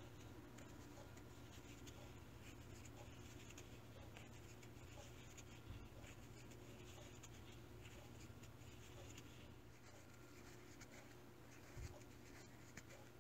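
Faint scratchy rustle of a crochet hook drawing wool yarn through stitch after stitch, working single crochet in the round, over a low steady hum.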